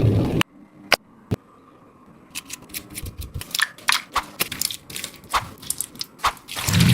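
A squishy toy being crushed: two sharp clicks about a second in, then a long run of irregular crackles and clicks.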